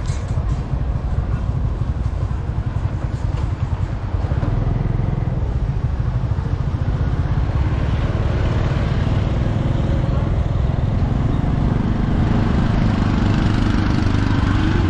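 Small motorbike engine running steadily while riding along a street, with wind and road noise over the rumble. It gets a little louder in the last few seconds.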